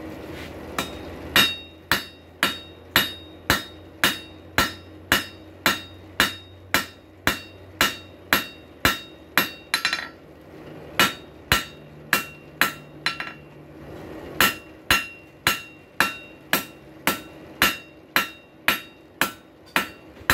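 Blacksmith's hand hammer striking hot rail-spike steel on an anvil, about two blows a second, each with a bright metallic ring. This is forging the business end of a rail spike steak turner. The blows stop briefly about halfway through, then pick up again.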